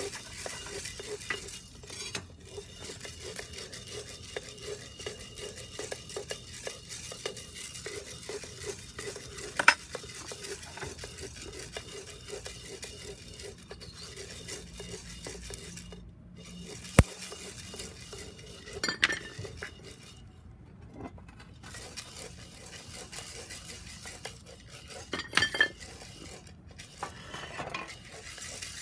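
Wooden spoon stirring roasting coffee beans in a round-bottomed cast iron pot: a steady rattling scrape of beans against the iron, broken by a few sharp knocks.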